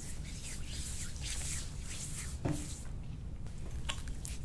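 Hands rubbing and pressing along a patient's leg during soft-tissue work: a run of short rubbing and rustling sounds, with one soft bump about two and a half seconds in.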